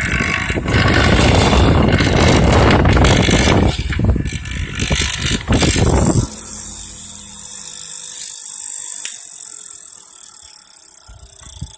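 Electric wood mortising (chisel) machine cutting into wood for about six seconds, a loud dense grinding noise. Then the cutting stops and the motor runs on much more quietly, its hum fading with a slowly falling pitch as it spins down.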